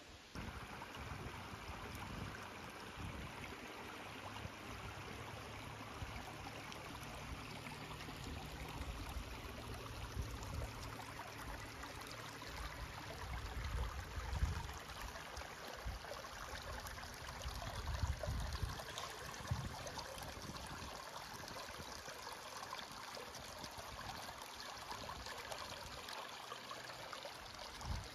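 A small shallow creek trickling and babbling over stones and fallen logs, as a steady rush of water. A few low rumbles on the microphone come through around the middle.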